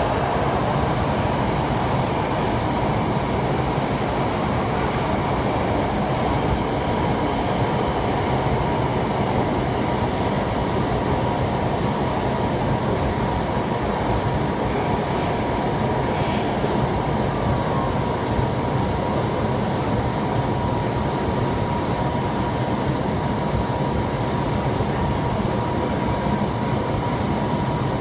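Beijing Subway Line 7 train running through the tunnel, heard from inside the carriage: a steady rumble of wheels on rail with a constant whine held throughout.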